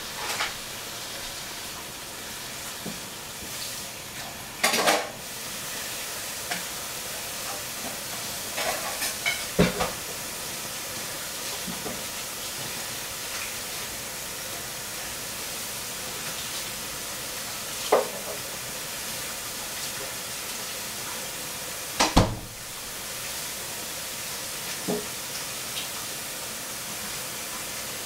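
Steady kitchen hiss with a few scattered knocks and clatters, the sound of kitchen work going on: two of them, about five seconds in and a little past twenty-two seconds, are sharp loud clacks.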